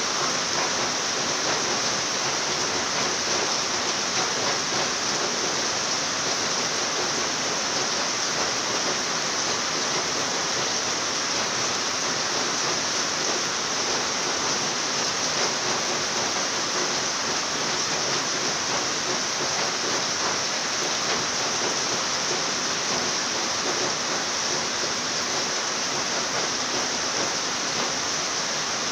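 Steady rain falling, an even hiss that neither swells nor breaks.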